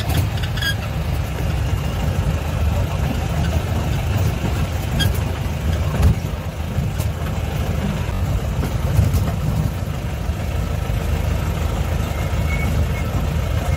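Jeep engine running at low speed while driving over a rough gravel track, heard from inside the cab, with a few sharp knocks from the body.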